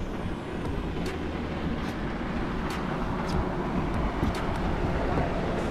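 A boat's outboard motor running steadily, a low hum under water and wind noise, with a few light clicks scattered through it.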